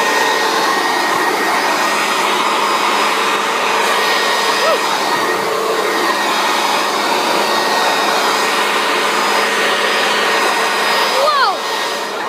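Handheld leaf blower running steadily and loud: a constant rush of air with a steady motor whine.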